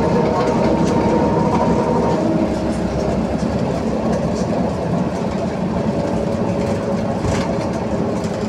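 Belkommunmash BKM 321 trolleybus under way, heard from inside the passenger cabin: a steady whine from its electric drive over road noise, with scattered clicks and rattles. The highest whine tone drops away about two seconds in.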